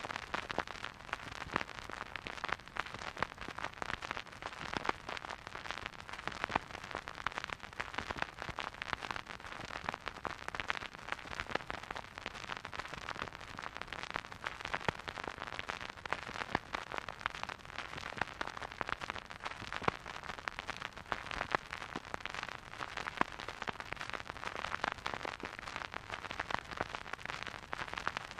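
Record player surface noise: a steady run of dense crackle and small pops over a soft hiss, as a stylus rides the groove of a vinyl record.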